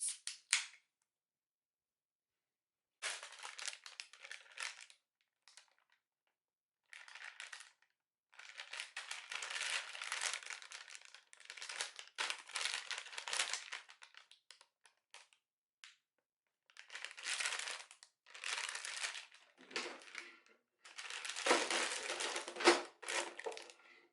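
Irregular bursts of crinkling, rustling noise with dead-silent gaps between them, busiest in the second half.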